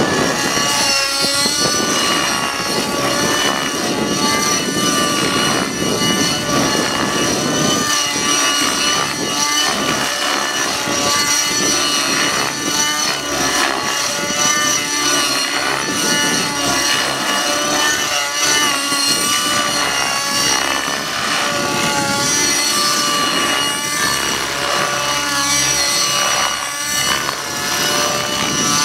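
Align 50 Hyper nitro engine and rotors of a T-Rex 600N RC helicopter running at high power through hard 3D aerobatics. A governor holds the note near steady, with brief wavers as the load changes. Heavier low rotor noise fills roughly the first eight seconds.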